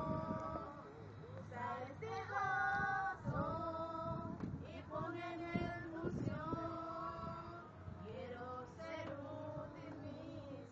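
A woman singing a slow melody in long held notes, phrase after phrase, over a steady low hum.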